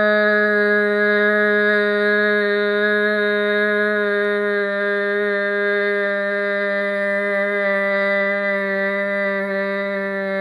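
A woman's voice holding one long, steady R sound ("errr") at a single pitch, made with the lips in a smile and the tongue pulled back, as a long-R articulation drill. It goes on without a break, growing slightly quieter.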